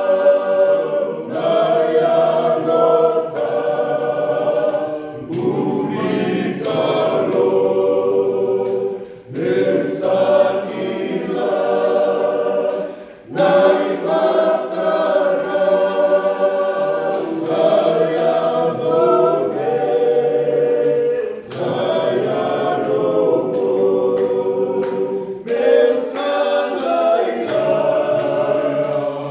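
A small group of men and a boy singing a Fijian hymn a cappella, several voices together with no instruments, with brief breaks between phrases.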